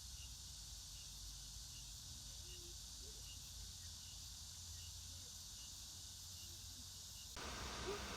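Faint outdoor ambience with an insect chirping steadily, a short high chirp a little under twice a second, over soft background hiss. The chirping stops abruptly near the end, where the background noise changes.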